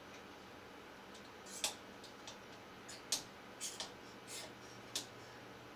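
Toggle switches on an IBM System/360 Model 65 console panel being flipped by hand, a series of sharp clicks at irregular intervals, as data is set on the switches.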